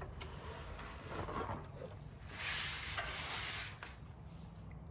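An oil drain pan being slid and scraped across the ground, with a sharp click just after the start and a longer scrape from a little past two seconds in.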